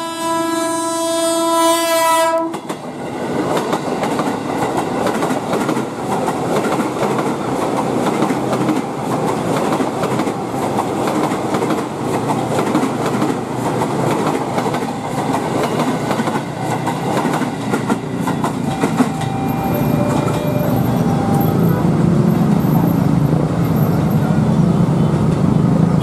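KRL electric commuter train sounding a long horn blast that cuts off abruptly about two and a half seconds in. The train then runs past close by, a loud steady rumble and clatter of steel wheels on the rails.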